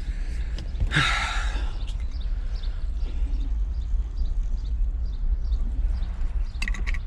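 Steady low rumble of a vehicle on the road heard from inside the cab, with a sigh-like exhale about a second in and scattered faint ticks.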